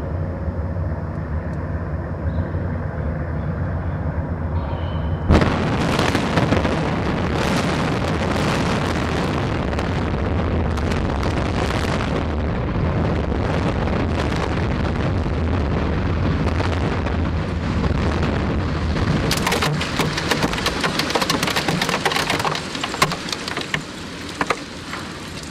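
Low steady hum for about five seconds, then the implosion charges in the Kingdome's reinforced-concrete structure fire in a rapid crackling string of detonations. These run straight into the long rumble of the stadium collapsing. A second burst of dense crackling comes about twenty seconds in before the rumble tapers off.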